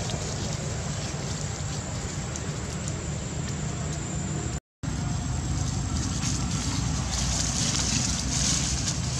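Steady outdoor background noise: a low rumble with hiss, like wind on the microphone or distant traffic. It cuts out completely for a moment a little under halfway through, and the hiss grows brighter near the end.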